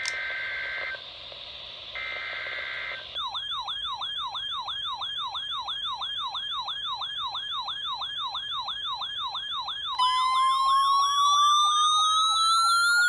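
Two short bursts of the two-tone data header of a NOAA Weather Radio SAME alert. These are followed by an electronic siren-like alert tone warbling up and down about four times a second. About ten seconds in, a second tone joins, rising steadily in pitch, and the sound grows louder.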